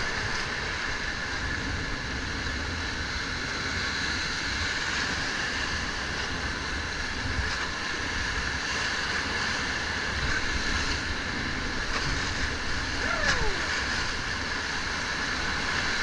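Muddy river whitewater rushing steadily past an inflatable raft in the rapids, with wind buffeting the microphone.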